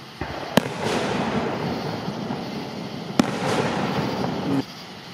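Aerial firework shells bursting: two sharp bangs about two and a half seconds apart, with a continuous noisy wash of sound between them that drops away near the end.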